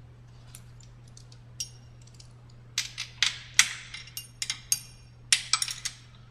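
Irregular metal clinks and clanks with a ringing edge, a few light ones at first and a dense, louder cluster from about three seconds in, as a socket wrench, bolts and a steel bracket are handled. A faint steady low hum sits under them.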